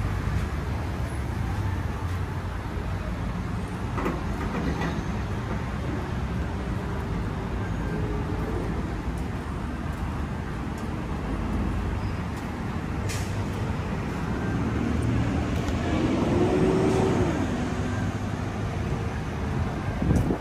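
Vehicle running: a steady low rumble of engine and road noise.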